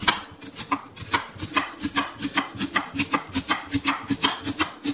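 Kitchen knife rapidly slicing a red onion thin, each cut knocking on the cutting board in a quick, steady rhythm of about five cuts a second.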